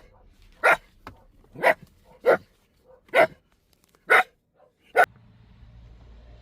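Italian greyhound barking, about seven short sharp barks at uneven intervals over five seconds, then stopping.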